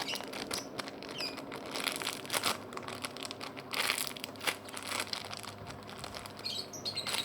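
Crinkling and crumpling of a homemade banana squishy being squeezed and handled, a run of irregular crackles.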